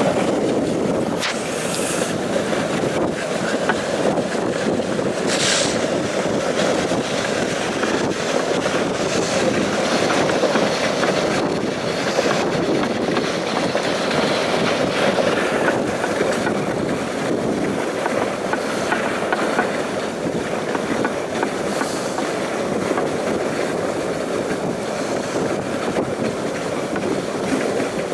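Dog sled runners sliding over packed snow behind a team of huskies: a steady rumbling scrape with the sled rattling, broken by a few brief sharper hisses.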